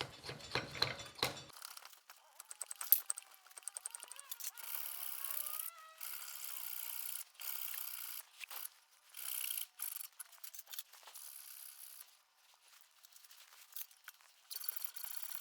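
Stop-start scraping and rasping strokes of hand tools working a small hickory wedge, with scattered clicks and knocks; the sound is thin, with no low end.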